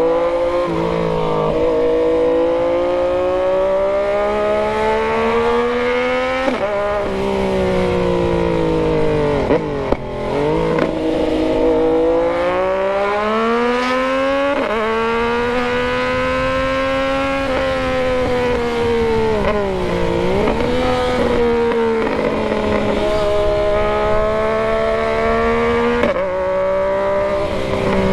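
Yamaha MT-09's inline three-cylinder engine running under load, climbing in pitch through the gears with a sudden drop at each shift, and dipping twice as it slows and picks up again.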